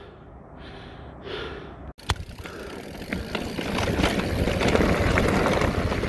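Mountain bike riding fast down a dirt trail: tyre noise on the dirt with many small rattles and clicks from the bike, starting abruptly about two seconds in and growing louder.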